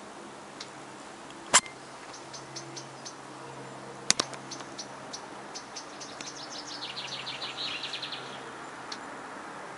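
Small songbirds chirping, with a rapid trill of notes falling in pitch in the second half. Two sharp clicks stand out, about a second and a half in and about four seconds in, over a faint low steady hum.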